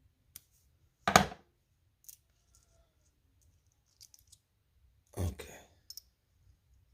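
Milwaukee 13-in-1 multi-tip screwdriver parts being handled: two sharp clacks of the shafts and bits being pulled out or seated in the handle, about a second in and again after five seconds, with a few light clicks between.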